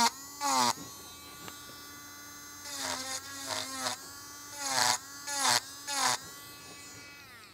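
Dremel Stylo pen-style rotary tool running with a steady high-pitched whine as a small carving cutter is dabbed into the wood again and again. Each dab adds a brief rasp and a dip in the motor's pitch as the bit bites. The whine fades and winds down near the end.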